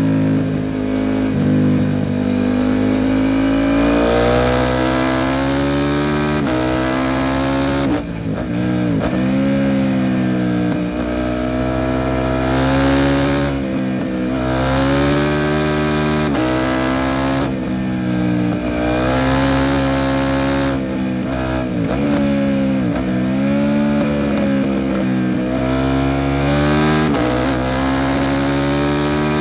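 KTM 790 Duke's parallel-twin engine through an Arrow titanium race exhaust, accelerating hard again and again: the pitch climbs, drops sharply at each shift or throttle close, and climbs again.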